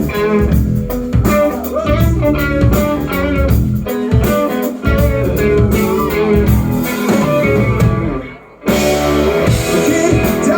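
Rock band playing an instrumental passage, electric guitar leading over bass with steady strokes of percussion. The band stops abruptly for about half a second near the end, then comes back in.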